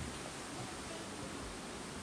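Steady rush of a waterfall and rocky creek, an even hiss with no distinct events.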